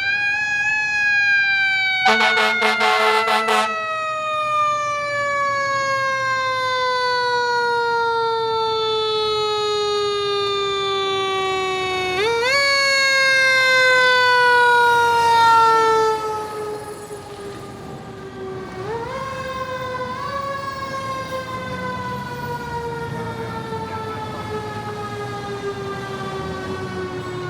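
Fire truck's mechanical siren winding down in a long, slowly falling wail, spun back up briefly twice, about 12 and 19 seconds in. A short horn blast sounds about two seconds in. The siren is quieter after about 16 seconds.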